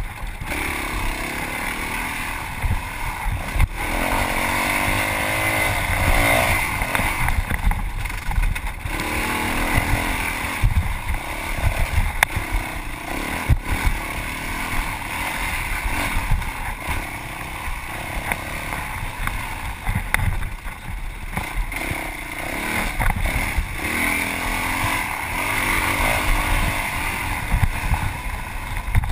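Yamaha WR450F's single-cylinder four-stroke engine revving up and down repeatedly while racing off-road, with frequent sharp knocks over rough ground.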